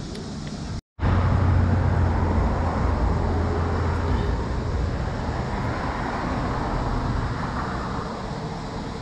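Road traffic: a car passing close, loud just after a split-second dropout about a second in, its low rumble and tyre noise then fading away over several seconds.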